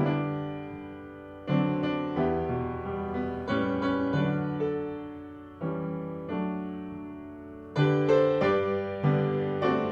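Piano playing a slow hymn tune: chords are struck every second or so and left to ring and fade, with a fuller group of strikes near the end.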